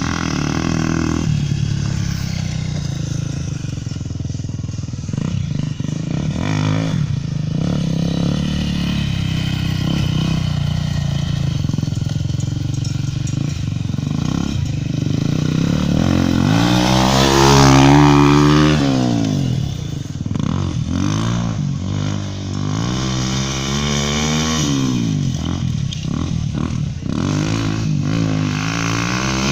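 Dirt bike with a Honda Tornado 250 cc single-cylinder four-stroke engine running hard. It holds fairly steady at first, then about halfway through the revs rise and fall over and over, loudest just past the middle.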